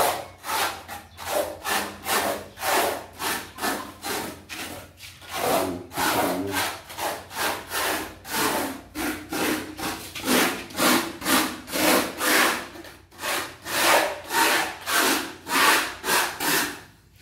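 Rhythmic scraping of a tool through damp sand-and-cement dry-pack mortar, about two strokes a second, with brief pauses about five and thirteen seconds in.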